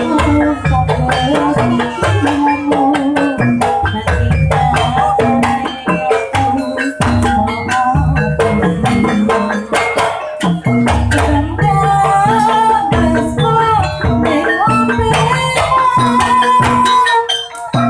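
Javanese jaranan gamelan accompaniment: drums and struck metal percussion in a busy, steady rhythm, with a wavering melody line over them.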